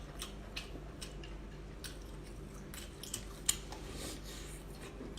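A person chewing and biting into a fried chicken cutlet: faint eating sounds with scattered soft clicks, one a little louder about three and a half seconds in.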